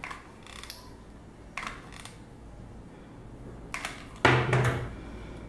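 Hot glue gun and fabric being handled while hot glue is applied to a stuffed denim doll body: a few short, sharp clicks and soft rustles. About four seconds in comes a louder knock with rustling.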